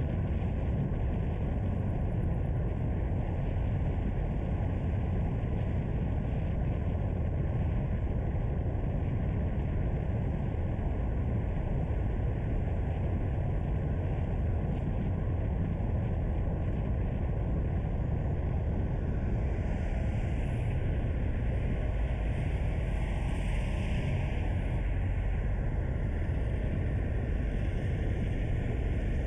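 Steady low rumble of a car driving along a mountain road, with engine, tyre and wind noise. About two-thirds of the way through, a higher hiss swells for a few seconds and fades.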